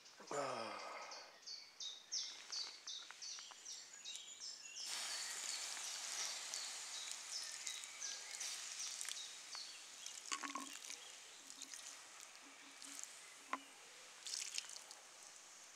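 Woodland ambience: a bird repeats a quick high note over and over. About five seconds in, a steady hiss with light crackling and pattering starts suddenly and slowly thins out, broken by a few soft knocks.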